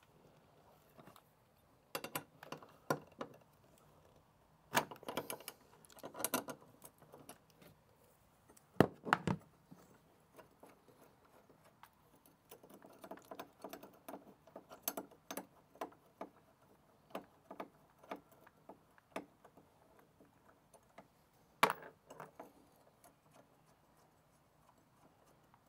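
Socket ratchet clicking in short runs as 10 mm bolts are backed out of a car's firewall bracket, among small metallic clinks of the tool and bolts. Two sharp knocks, about nine seconds in and again near the end, are the loudest sounds.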